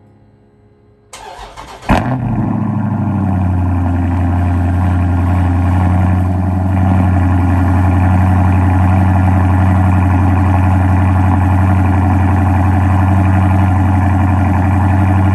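Car engine cranked by its starter for under a second, catching about two seconds in, then running at a steady idle, a little louder from about six seconds in.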